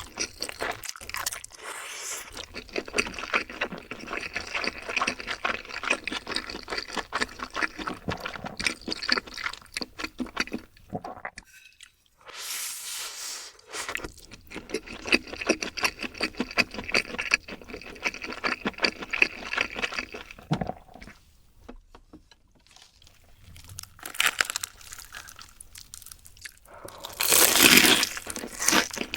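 Close-miked crunching and chewing of crispy fried chicken, in long runs of dense crackling. There is a short break about eleven seconds in, and a louder crunchy bite near the end.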